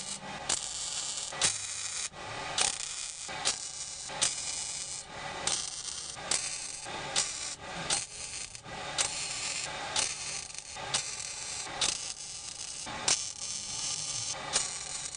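MIG welder laying plug welds through pre-drilled holes in a replacement torque-box panel: some twenty short crackling bursts, each starting with a sharp crack, one every half second to a second.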